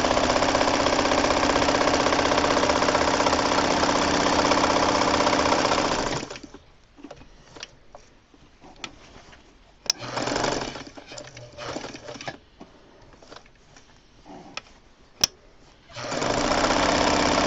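Vintage Dressmaker zigzag sewing machine stitching at a steady speed, then stopping after about six seconds. A few sharp clicks and one short burst of stitching follow, and the machine starts sewing again near the end.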